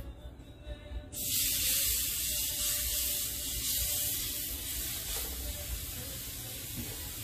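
New York strip steaks sizzling in a hot, lightly oiled de Buyer carbon steel pan: the sizzle starts suddenly about a second in as the meat goes down, then holds loud and steady.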